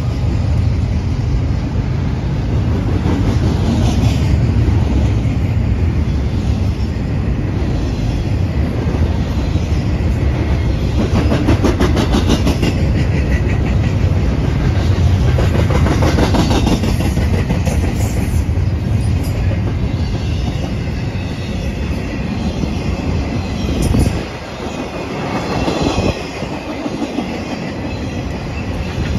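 Double-stack container well cars of a freight train rolling past close by. There is a steady heavy rumble, with stretches of rapid clicking from the wheels over the rail joints around the middle. About 24 seconds in, the low rumble drops off as lighter flat cars follow.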